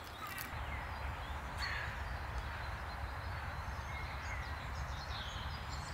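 Outdoor ambience by a small river: a steady low rumble with a few faint, short bird calls, more of them in the second half.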